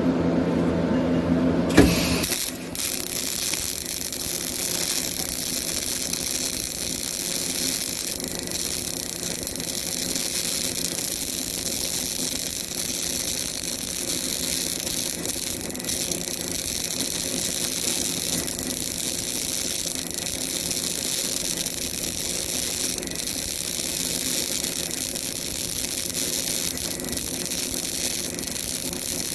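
CO2 MIG welding arc crackling and sizzling steadily as a vertical bead is run with an upward half-moon weave. It strikes with a sharp click about two seconds in, over a steady machine hum, and cuts off near the end.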